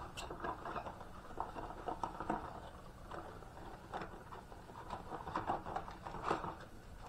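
A long cardboard box being handled and opened by hand: scattered light rustles and taps, with a few sharper clicks.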